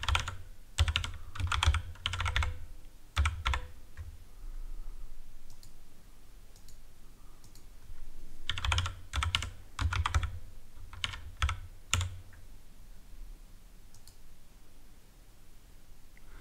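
Typing on a computer keyboard in two runs of quick keystrokes, one at the start and one about halfway through, with a pause of scattered faint clicks between and after.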